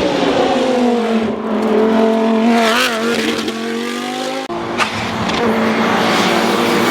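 Hill-climb race car engine running loud under load, its pitch dropping over the first second and then holding steady. The sound breaks off abruptly about two-thirds of the way through, and an engine runs steadily again.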